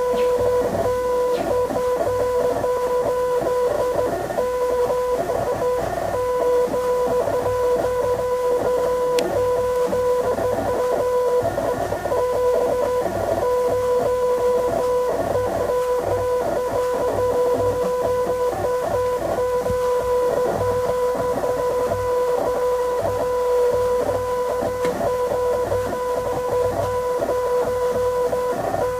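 Background instrumental music with a guitar-like plucked and strummed texture over a steady held tone, which drops out briefly a few times.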